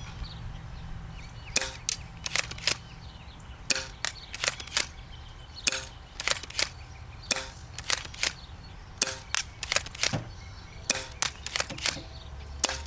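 Smith & Wesson M3000 pump-action spring airsoft shotgun being pumped and fired again and again: sharp clicks and snaps of the pump stroke and the spring shot, in about six quick groups of three or four, one group every two seconds or so.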